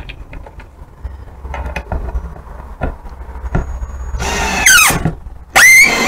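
Ryobi cordless drill driving a screw into a wooden board in two short bursts of motor whine. The first burst drops in pitch as the screw bites and the second holds steady, after a few light knocks of handling the screw and board.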